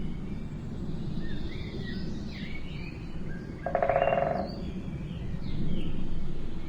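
Several short bird chirps scattered over a steady low outdoor rumble, with a louder buzzy, rattling call lasting under a second a little before the middle.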